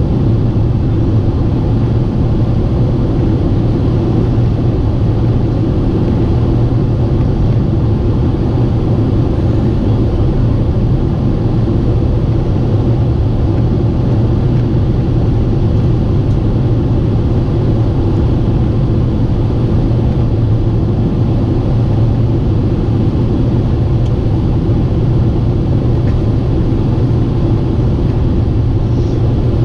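Boeing 747-8 heard from inside the cabin in flight: a steady, unbroken low roar of engines and airflow.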